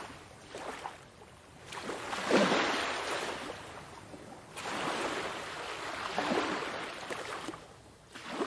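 Ocean surf: waves rushing and breaking in two big swells, the first peaking about two and a half seconds in and the second from about four and a half seconds, with a smaller wash near the end.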